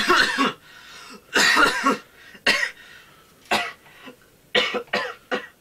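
A young man in a coughing fit: about seven coughs, the first two long and drawn out, then short single coughs coming closer together near the end. The coughing is acted as the sign of an oncoming asthma attack.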